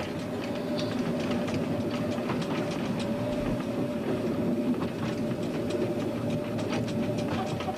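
Heritage train running along the track: a steady rumble and drone with a held mid-pitched tone, and irregular clicks and knocks from the wheels over the rails.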